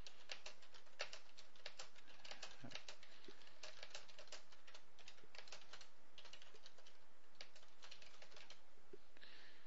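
Computer keyboard typing, quick irregular keystrokes several a second as a sentence is typed out.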